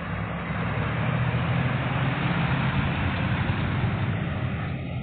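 Engine of a 1998 step-van food service truck idling steadily.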